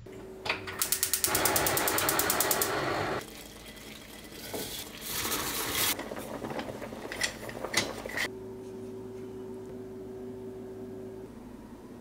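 Kitchen stove-top sounds around a pot of water on a gas burner. There is a rapid run of even ticking over a rush of noise for about two seconds, another shorter rush around five seconds in, a few light clicks, then a steady low hum.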